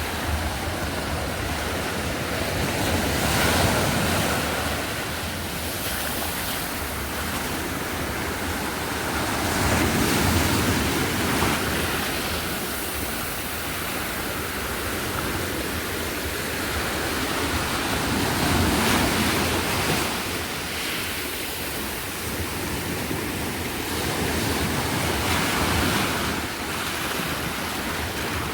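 Sea waves breaking and washing ashore, the surf swelling and easing about every eight seconds.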